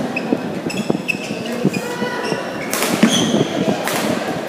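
Badminton rally: rackets hitting the shuttlecock with sharp clicks, players' footsteps, and short high-pitched shoe squeaks on the court floor.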